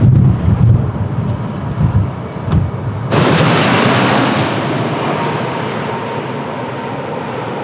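Gusty wind buffeting the microphone over a low rumble. About three seconds in, a jet airliner's engine noise starts suddenly and loud, then slowly fades as its high end dies away.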